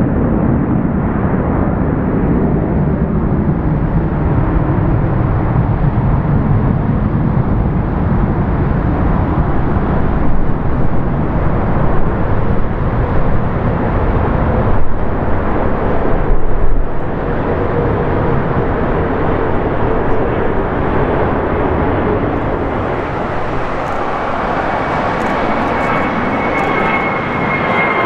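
Airbus A330-200 jet engines, Rolls-Royce Trent 700 turbofans, running at high power: a loud, deep rumble with a tone that falls early on and a high whine that comes in about three-quarters of the way through.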